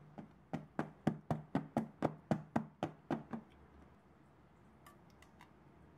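Kitchenware tapped repeatedly: about a dozen even knocks, about four a second, stopping after about three seconds, followed by a few faint clicks.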